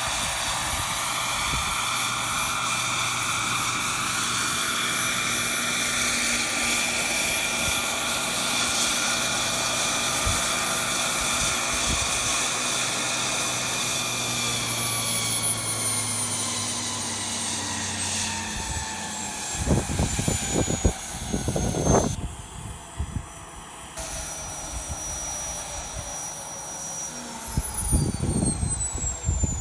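Model gas-turbine engine of an RC jet helicopter, a scale EC-135, whining steadily at a high pitch as it hovers and sets down. From about halfway it spools down, the whine falling in pitch. Low rumbling bursts come in during the last third.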